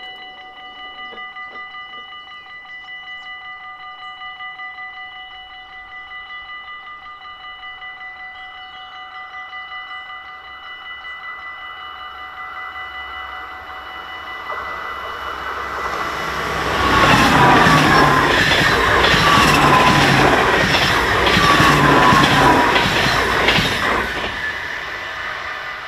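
Dutch level-crossing bell ringing rapidly and steadily while a train approaches and passes. About a dozen seconds in the train grows louder, and its wheels clatter over the rails for about seven seconds before the sound fades near the end.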